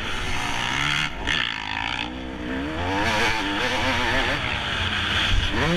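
Motocross dirt bike engine revving as the rider accelerates along the track, its pitch climbing and dropping back with the throttle and gear changes, rising again near the end, over a steady rushing noise.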